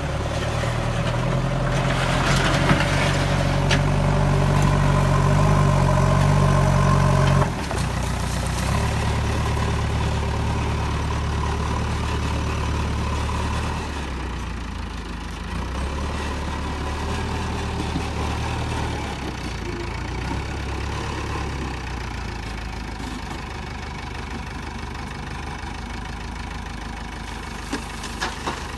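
Heavy diesel engine of earthmoving machinery running hard for about seven seconds, then dropping suddenly to a lower speed and idling unevenly, its pitch stepping up and down.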